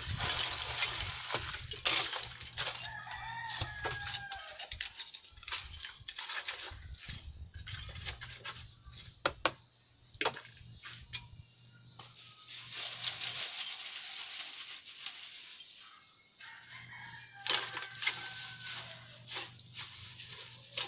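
A rooster crows twice, a few seconds in and again near the end. At the start, coconut-shell charcoal clatters as it is poured into a concrete-block stove, and scattered knocks follow.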